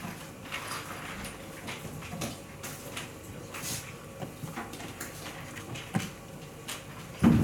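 Quiet playing-hall room tone with faint scattered clicks of draughts pieces being set down on boards, and a sharper single click about six seconds in as a piece is moved. A much louder low sound cuts in right at the very end.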